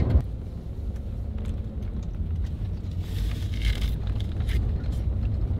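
Steady low road and engine rumble heard inside the cab of a moving Ford F-150 pickup, with a knock at the very start, a few faint clicks, and a brief rustle about three seconds in.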